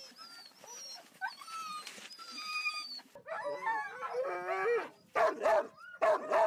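A pack of sled dogs whining, then howling and yelping together from about three seconds in, several wavering voices at once and loudest near the end.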